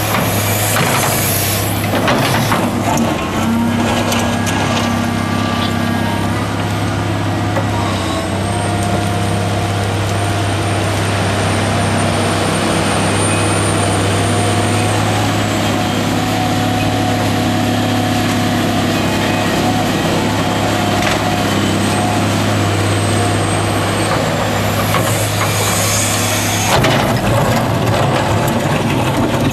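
Caterpillar 345B L hydraulic excavator working beside the Caterpillar 740 articulated dump truck it is loading: heavy diesel engines running steadily under load, with high hydraulic whines rising and falling as the excavator swings. About three seconds before the end the sound changes to the steel bucket scraping and crunching into stony soil.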